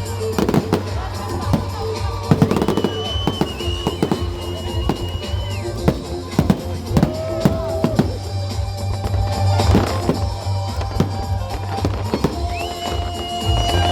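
Fireworks bursting, a rapid scatter of bangs and crackles, over loud music with a steady bass.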